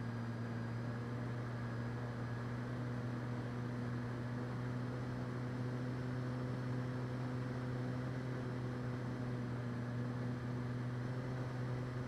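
A steady low hum with fainter higher tones over an even hiss, unchanging in pitch and level.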